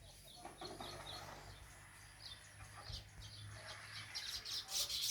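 Weaver birds chirping faintly in short, repeated high calls, with more calls crowding in near the end.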